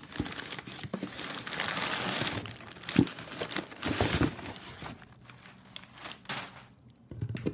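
Crumpled brown kraft packing paper crinkling and rustling as a hand digs through it in a cardboard box, with a sharp loud crackle about three seconds in. It goes much quieter over the last two seconds.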